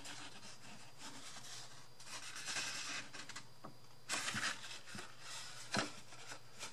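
Sheet of scrapbook paper rustling and rubbing as it is handled and bent around a wooden purse, with a couple of light knocks.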